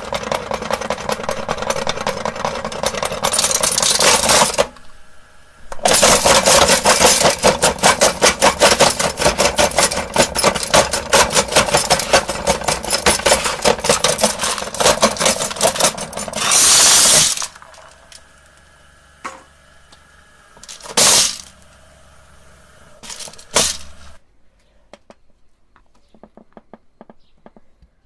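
Motor-driven meat grinder running with glass marbles rattling and clattering inside it. It runs in two long spells, about four seconds and then about eleven seconds, with a short break between. After that come a few brief bursts before it stops.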